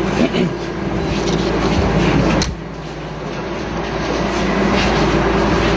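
Indistinct, noisy bustle of a crowd moving and murmuring close around the microphone in a packed room, over a steady low hum. The noise dips for a moment about halfway through.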